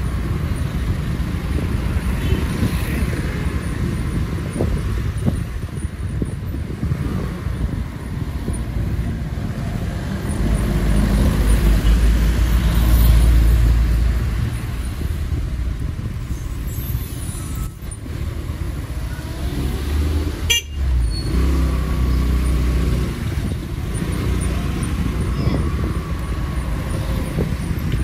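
Motor vehicle driving, with a steady rumble of engine and road noise that swells for a few seconds around the middle.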